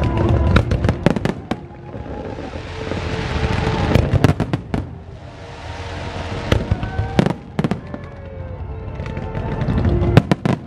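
Fireworks display: volleys of sharp bangs from shells bursting overhead, with a hissing crackle that swells and fades between the volleys.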